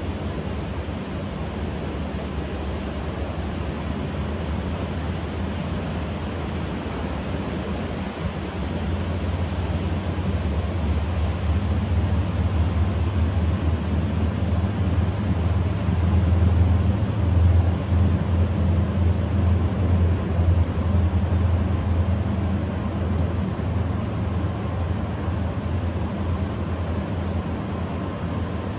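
Honeybees buzzing at the entrance of a nuc hive: a steady low hum that swells louder about halfway through and eases off near the end.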